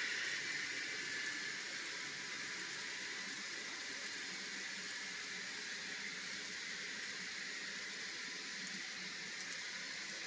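N scale freight cars rolling along model track, a steady whirring hiss of wheels on rail that eases off over the first couple of seconds, then holds level.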